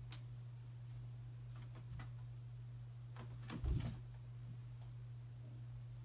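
A cat scrabbling around a carpeted cat tower post, with soft scuffs and clicks and a dull thump about three and a half seconds in, over a steady low hum.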